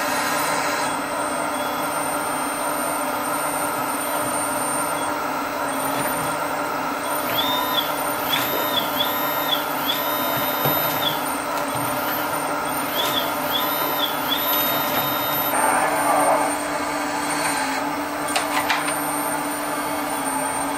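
The hydraulic pump and drive of a radio-controlled model excavator run steadily while its scrap grapple works. In the middle a high tone comes and goes several times, and near the end there are a few sharp clatters as the grapple handles the rocks.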